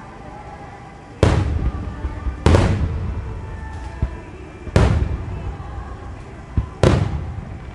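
No. 7 (about 21 cm) Japanese aerial firework shells bursting overhead in rapid succession: four heavy booms, the first about a second in, each trailing off in a rolling echo. A couple of fainter sharp cracks fall between them.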